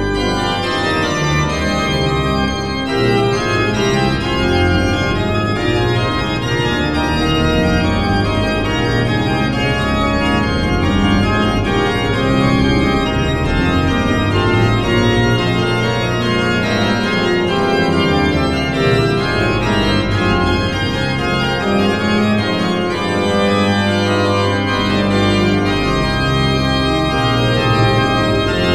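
Church organ playing slow, sustained chords.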